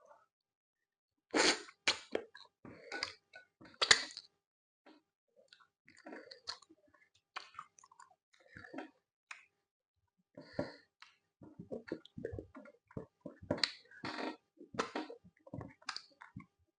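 Close-up mouth sounds of a person eating akpu with soup: wet chewing, lip smacks and clicks in irregular runs, with a few louder smacks in the first few seconds and a dense stretch of chewing near the end.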